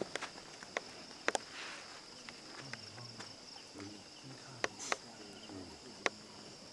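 Crickets chirring steadily, with a few scattered sharp clicks and knocks and faint low voices in the middle.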